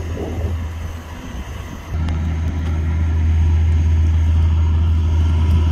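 A towboat's diesel engines drone low and steady as it pushes a loaded barge past, getting louder about two seconds in.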